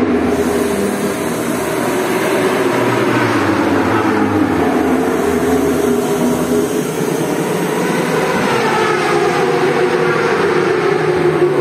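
Racing motorcycles running at speed on the circuit: a loud, continuous engine noise with engine notes sliding in pitch as bikes go by.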